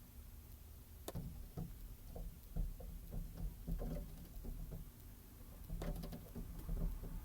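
A series of light, irregular taps and knocks: a bird pecking at its reflection in a mirror. The taps begin about a second in, come in quick runs, pause, then start again near the end.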